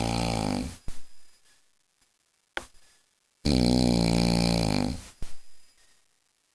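A man snoring very loud: a long droning snore that ends about half a second in, then a second snore of about a second and a half starting around three and a half seconds in, with a brief short sound between them.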